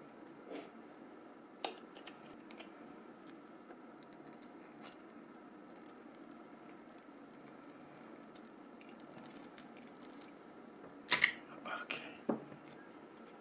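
Faint clicks and light scraping of small phone parts being handled and pried apart, with a sharp cluster of plastic clicks about eleven seconds in and one more click just after.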